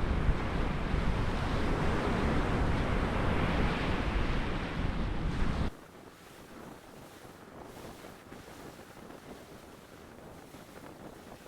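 Wind buffeting the microphone over breaking surf on an ocean beach, a loud rumbling hiss that cuts off abruptly about halfway through, leaving a much quieter hiss.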